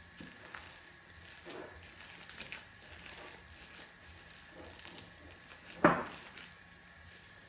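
Gloved hands mixing and squeezing thick ground urad dal vadai batter in a glass bowl: faint squishing and rustling, with one sharp knock about six seconds in.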